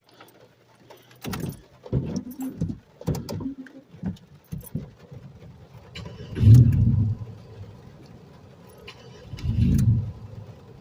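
Car engine turned over by the starter in two short bursts of about a second each, with irregular clicks and knocks before them. It is not catching: a hard start with the engine wet after a flooding storm.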